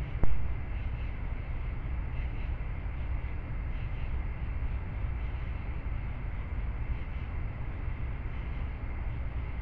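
Steady low rumble and hiss from a trail camera's own microphone, with a faint steady high tone, and one sharp click about a quarter second in.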